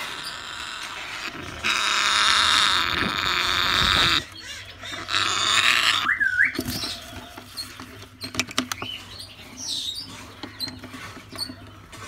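African grey parrots making loud raspy, hissing calls for the first few seconds, then a short curling whistle about six seconds in, followed by scattered clicks and soft chirps.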